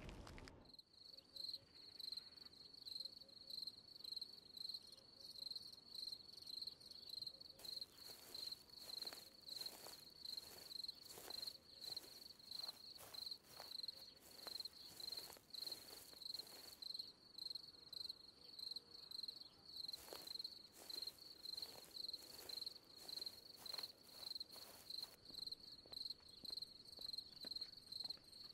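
Crickets chirping steadily in a fast, even pulse, faint night ambience. Two stretches of irregular soft rustling and clicking come in the middle.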